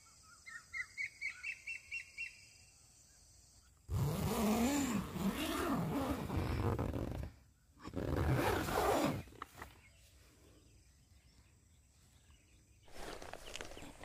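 Birds calling at night by a lake over a steady insect hum: first a quick run of about eight short notes, then two loud, harsh, drawn-out calls that bend in pitch, and a shorter one near the end. These are the strange calls from birds in the waterside bushes that kept on through the night and sounded like a wild animal approaching.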